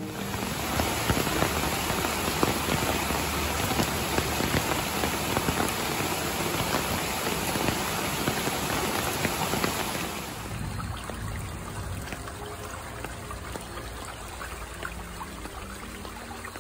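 Steady rain falling on a wet path and the foliage beside it, a dense spread of small drop hits. About ten seconds in it becomes quieter.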